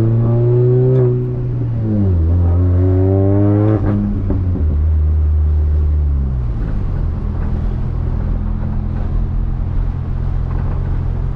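Supercharged Mini Cooper's engine pulling hard through the gears: the revs climb, dip at an upshift about a second in, climb again and dip at a second upshift about four seconds in. Then the revs fall away to a steady, lower drone.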